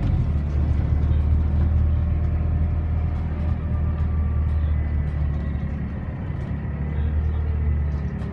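Enviro400 double-decker bus heard from inside the passenger saloon while it drives: a steady low engine drone mixed with road noise, with faint whining tones above it, easing off slightly near the end.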